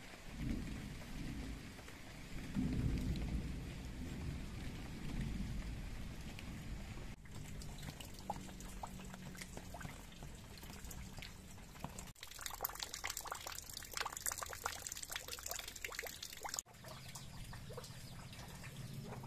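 Rain falling, heard in several short stretches joined by abrupt cuts. A deep rumble fills the first few seconds, and a later stretch is dense with the crackling patter of drops.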